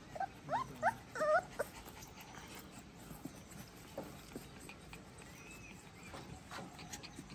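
Rottweiler puppies whimpering: about six short, high whines in quick succession in the first second and a half, then only faint ticks.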